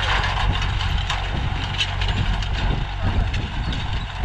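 Diesel tractor engine running steadily under load, pulling a disc harrow: a steady low drone with a hiss over it.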